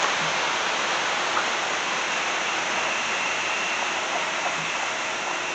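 Steady rush of river water flowing at a small hydroelectric power dam that is letting through only a little water.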